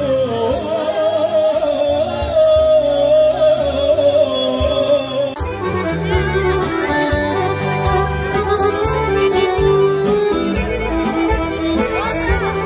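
Folk band music: accordion carrying an instrumental passage over a bass line, the melody changing about five seconds in.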